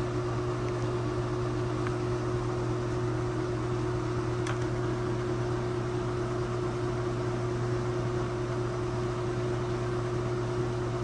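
Washing machine running in its spin cycle: a steady, even motor hum with a faint tick about four and a half seconds in.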